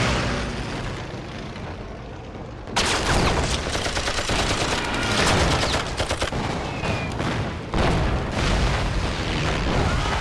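Battle sound effects of gunfire and explosions: a fading rumble, then about three seconds in a sudden dense volley of rapid gunfire that keeps going, and a heavy deep blast about two-thirds of the way through.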